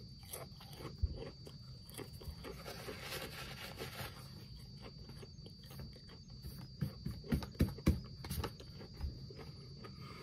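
Close-up chewing and crunching of thin, crispy potato chips, with rustling from the chip bag. A run of sharper, louder crunches comes in the second half.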